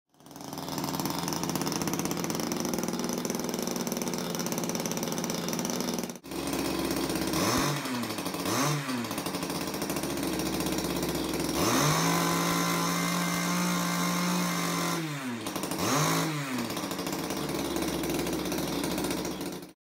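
Small two-stroke engine from a Homelite ST-275 string trimmer, mounted in an RC boat and run out of the water with the propeller spinning. It runs steadily at first, is blipped up twice, is held at higher revs for about three seconds and drops back, then is blipped twice more near the end.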